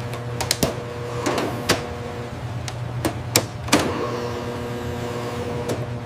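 A steady mechanical hum, like a running motor, with a dozen or so sharp clicks and knocks scattered over it.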